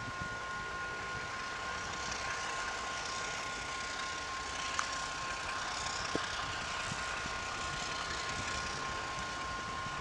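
ALCo RSD16 diesel-electric locomotive approaching slowly with empty wagons: a steady, distant train rumble and rail noise, with a steady two-note high whine over it and two short clicks near the middle.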